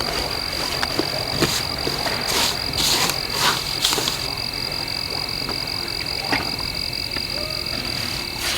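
Dusk chorus of frogs and insects: a steady high trill with sharp clicking, croaking calls over it, the calls thicker in the first half and thinning later.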